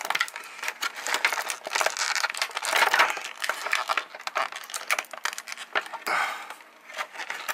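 Thin plastic bag crinkling and crackling irregularly as hands handle the clear plastic model-kit parts sealed inside it, easing off briefly near the end.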